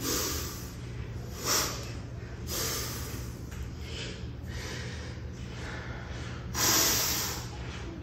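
A man's sharp, hissing breaths, forced out in time with one-arm kettlebell cleans. Several short ones come in the first few seconds, and the loudest and longest comes near the end.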